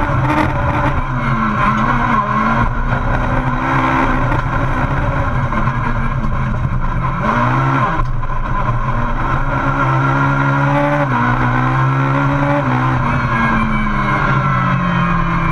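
Racing engine of a VW Polo Super 1600 rallycross car (a 1.6-litre four-cylinder) heard from inside the cabin, revving up and down through gear changes and corners at race speed. About eight seconds in the revs dip briefly, and over the last couple of seconds they fall away steadily.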